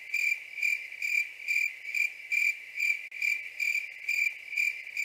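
Crickets chirping: a steady high trill that pulses a little over twice a second.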